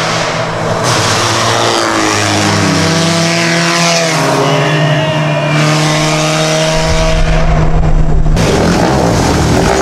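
Engines of two vehicles driving past at speed on a gravel road, one of them a lifted Honda Civic. Their pitch falls as they go by, and they keep running as they pull away.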